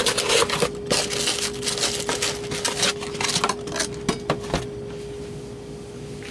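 Hands handling a cardboard product box and its packing: a run of rustles, scrapes and light clicks that dies down after about four and a half seconds. A steady hum runs underneath.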